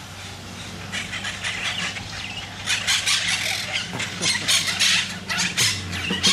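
A colony of monk parakeets squawking and chattering at their communal stick nest: a dense run of short, harsh calls that grows louder and busier about three seconds in.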